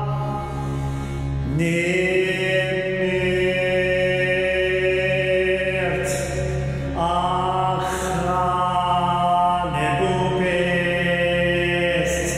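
A man chanting verses in ancient Egyptian, holding long notes and moving to a new pitch every few seconds, over a steady low drone.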